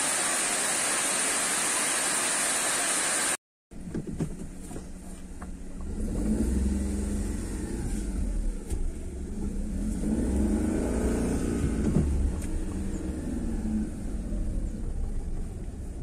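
A waterfall's steady rush for about three seconds, cut off suddenly. It is followed by a car engine's low rumble heard from inside the cabin, its pitch rising and falling as the car speeds up and slows.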